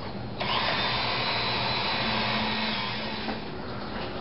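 Dremel rotary tool fitted with a 36-grit wheel, switched on about half a second in and running at high speed with a steady whine. It eases off somewhat after about three seconds.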